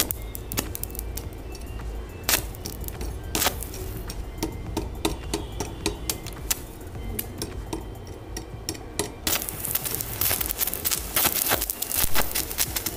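Electric arc welding with a sparkler wire as the electrode on crossed steel rebar. Scattered sharp snaps and clicks come as the arc is struck and breaks off. From about nine seconds in the arc holds and gives a dense, steady crackle, over a low hum from the welding machine.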